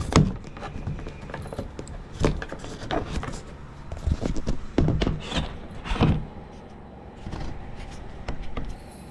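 A handful of irregular knocks and thumps, the loudest just after the start and again around five and six seconds in, over a low rumbling background.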